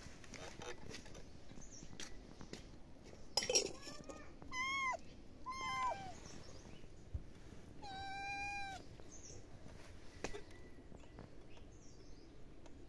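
Tabby kittens meowing: three short, high calls a second or so apart, the third longer and held steadier. Just before them comes a brief loud rustling noise, the loudest sound here.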